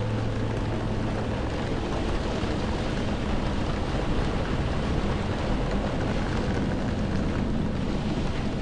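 Steady storm ambience of rain and wind, an even rushing hiss with no separate events. The last held music notes die away in the first second.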